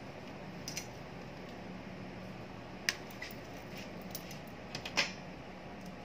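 Light sharp clicks and rattles of computer power-supply cables and plastic connectors being handled, the loudest about five seconds in, over the steady hum of the running power supply and DVR.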